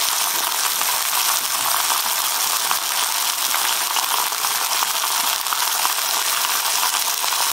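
Venison steaks frying in hot ghee in a cast-iron skillet: a steady sizzling hiss with fine crackles and pops.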